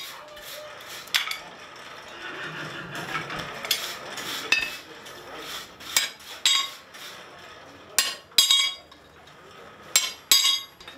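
Hammer blows on a punch held in a horseshoe on an anvil: sharp, ringing metal strikes, spaced irregularly and mostly coming in pairs in the second half, as the farrier punches nail holes in the shoe.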